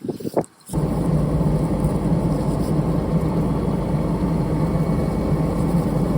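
A few short taps, then about 0.7 s in the steady running of an idling sprayer engine cuts in abruptly, a loud even hum with a low drone.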